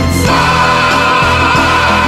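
Music with singing voices holding long, wavering notes.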